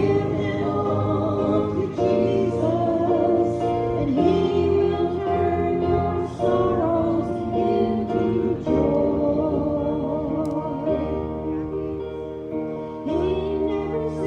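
Gospel hymn sung by voices over an instrumental accompaniment of held chords that change every second or two.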